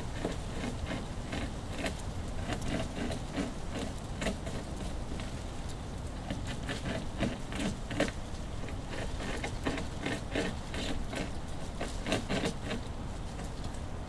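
Beaver chewing: irregular crunching clicks, several a second, with louder clusters about halfway through and near the end, over a steady low rumble.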